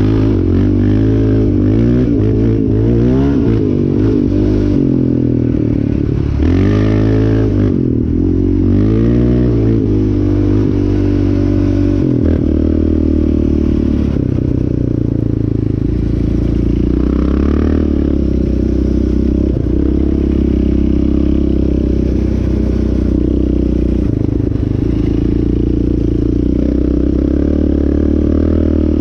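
Yamaha Raptor 700R ATV's single-cylinder four-stroke engine under way, revving up and down repeatedly through the throttle for about the first twelve seconds, then running at a steadier speed.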